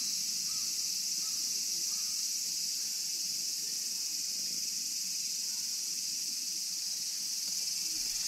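Steady, unbroken high-pitched chorus of insects.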